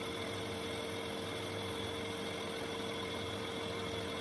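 Manual metal lathe running steadily under power feed, taking a facing cut on an aluminium part: an even hum with one constant mid-pitched tone.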